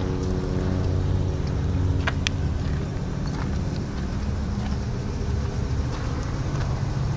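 Ford 7.3-litre Power Stroke turbo-diesel V8 idling steadily, its tone fading about three seconds in to a low rumble. A couple of sharp ticks about two seconds in.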